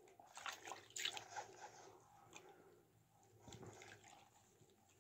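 Faint splashing and dripping of water in a plastic basin as hands rub a foot soaking in it, with a few small splashes in the first second or so, then quieter.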